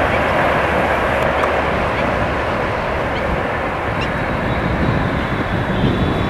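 Rajdhani Express LHB coaches rolling away along the track: a steady rumble of wheels on rails that eases off slightly as the rear of the train recedes.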